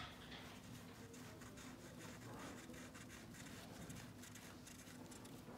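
Faint rustling and light handling sounds of gloved hands working a compression gauge's hose and adapter in a spark-plug hole of an engine head, over a faint steady hum. The engine is not cranking.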